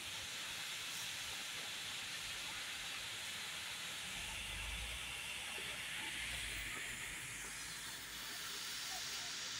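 A steady hiss, with a low rumble swelling in the middle.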